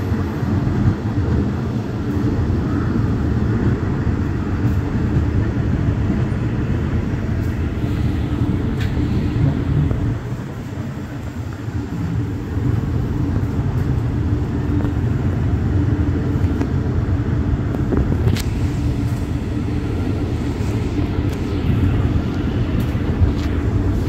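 Twin Cummins LTA50L V16 diesel engines of the locomotive running steadily under power, a deep drone mixed with the rumble of the train's wheels on the track, heard through the open window of the coach just behind it. The drone eases a little about ten seconds in, then picks up again.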